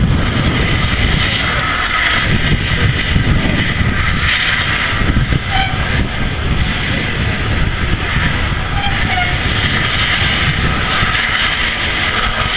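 A steam locomotive running slowly tender-first into a station platform with its train, a steady rumbling noise throughout.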